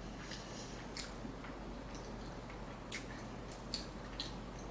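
Faint close-miked chewing: scattered soft, wet mouth clicks and smacks, several in quick succession in the second half.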